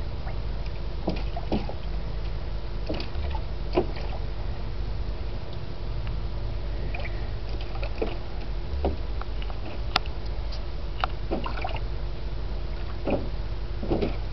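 Shallow water in a plastic kiddie pool sloshing, with scattered small splashes as a small dog wades and paws about in it, over a steady low hum.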